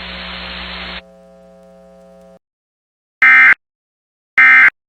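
Broadcast static hiss for about a second, then a fainter steady hum that cuts off. After a pause come two short, loud, screeching Emergency Alert System SAME data bursts about a second apart: the end-of-message code closing the alert.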